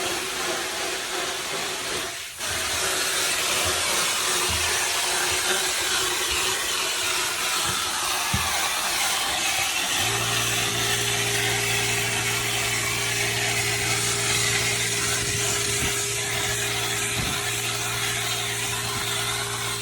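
Drywall texture hopper gun spraying watered-down joint compound with compressed air: a steady loud hiss with a brief break about two seconds in. About halfway through, a steady motor hum from the air compressor joins it.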